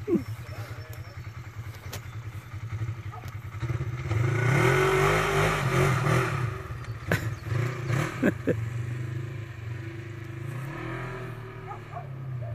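Polaris RZR 1000 side-by-side's engine running at a distance, revving harder from about four seconds in as it climbs the dirt mound, then easing back. A few sharp knocks come a little past the middle.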